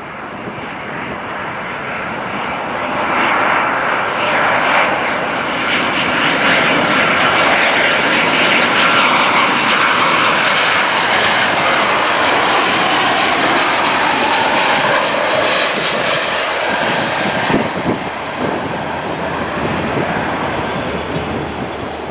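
Boeing C-40A Clipper's twin turbofan engines as the jet passes: the sound builds over the first few seconds, holds loud with a high whine that slowly falls in pitch, then drops away near the end.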